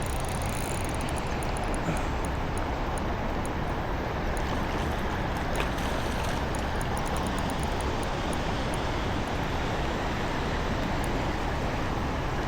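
Steady rushing of flowing river water, an even wash of noise with a low rumble under it.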